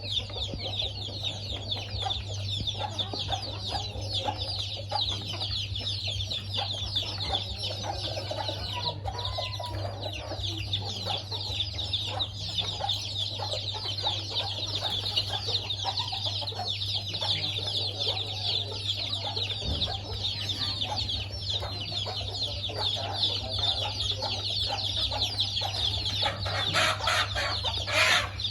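Chickens clucking as they feed, over a dense, constant high-pitched chirping, with a steady low hum underneath.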